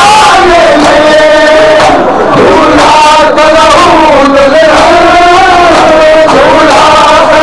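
Many men's voices chanting a Muharram mourning lament (nauha) together, very loud and close.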